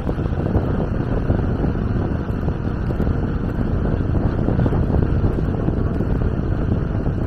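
Steady wind buffeting the camera's microphone while riding a bicycle along a road: a continuous low rush with no distinct tones.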